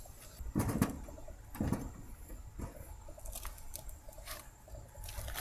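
Several light knocks and rattles, about one a second, from hand work on the air-conditioner condenser's metal capacitor bracket.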